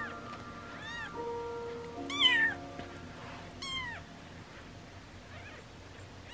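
A four-day-old newborn kitten mewing while being bottle-fed: about four short, high-pitched cries that rise and fall in pitch, the loudest a little over two seconds in.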